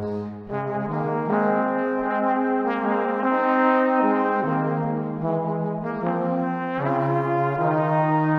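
Background music: slow, sustained chords in a rich, horn-like timbre, moving to a new chord every second or so.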